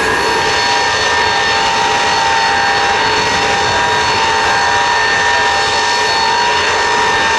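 Ilyushin Il-76 freighter's four Soloviev D-30KP turbofans whining loudly and steadily while the jet taxis: a screaming whine of several fixed tones over a rushing noise.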